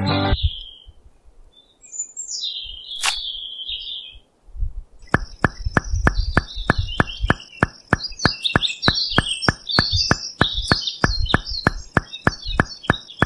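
Small birds chirping. From about five seconds in, a regular ticking joins them at about three ticks a second, under a thin, steady high tone.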